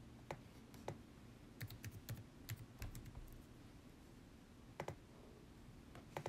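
Typing on a computer keyboard: a quick run of about a dozen key clicks, then a pause, a pair of clicks near five seconds and a few more at the end.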